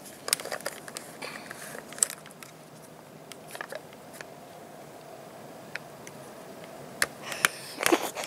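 Small plastic clicks and crackles from the cap and seal of a plastic motor-oil canister being worked open by hand, with a few sharper clicks near the end.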